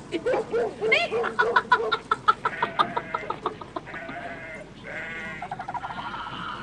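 A man laughing in quick repeated bursts, with a shorter run of laughter about five seconds in.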